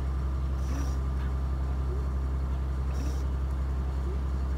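The sailing clipper's inboard engine running steadily under way, a continuous low drone, with two short hisses over it.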